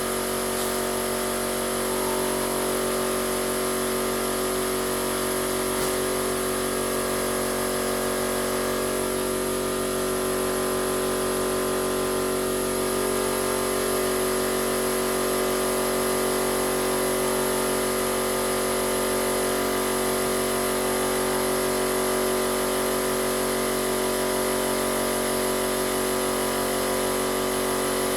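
Air compressor running steadily, filling its tank with an extra tank added, so it runs longer before shutting off.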